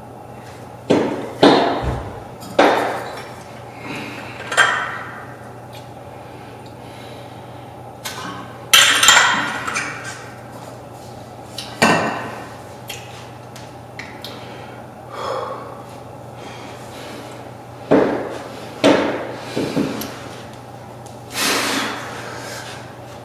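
Hex dumbbells knocking and clinking as they are handled and lifted for seated curls: about a dozen separate, irregular knocks.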